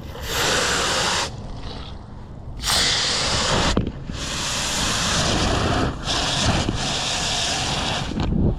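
Water hissing from a spraying hose nozzle in three bursts, a short one, another short one about three seconds in, then a long one of about four seconds, each starting and stopping abruptly.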